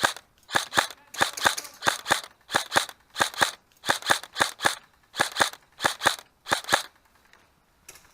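Airsoft gun firing a quick string of single shots, about twenty sharp cracks in groups of two or three, stopping about seven seconds in.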